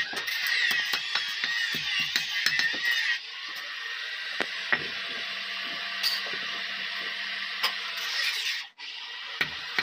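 Irregular sharp metallic clicks and knocks of hand tools working metal. About three seconds in the sound changes abruptly to a quieter stretch with fewer clicks and a faint steady hum.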